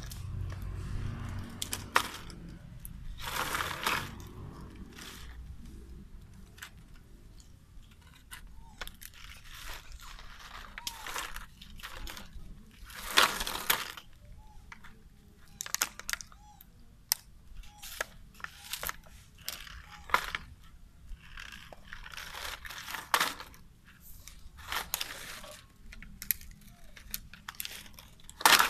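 Plastic bottle crinkling and crunching in irregular bursts as macaques bite and handle it.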